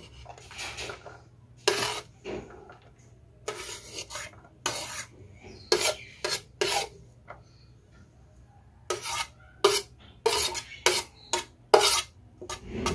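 Metal spoon scraping and knocking against a plate, pushing minced garlic off it: a string of short, sharp scrapes, with a lull around the middle and a quicker run of strokes near the end.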